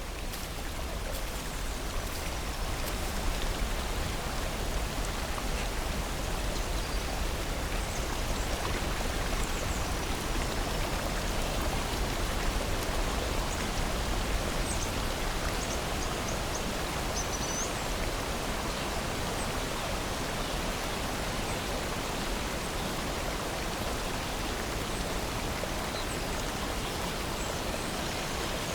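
Steady rush of water in a forest, with a few faint, brief bird chirps.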